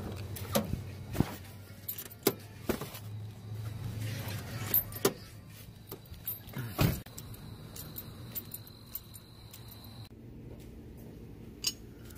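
Scattered clicks and knocks from a car door and loose metal parts being handled while a wheel spacer is fetched from the car, with one heavier thump about seven seconds in.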